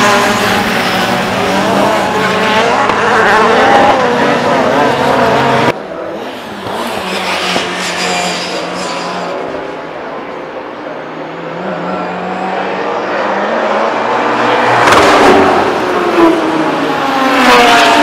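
Saloon race cars' engines at full throttle passing on the circuit. The sound drops abruptly about six seconds in to quieter, more distant engines, then grows loud again near the end as cars pass close, their pitch falling as they go by.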